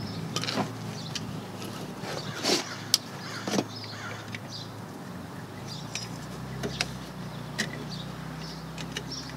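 Scattered small metallic clicks and clinks of a Toyota Yaris rear drum brake shoe assembly being handled as the parking brake cable is worked out of the slot in the shoe's parking brake lever, several of them between about two and four seconds in.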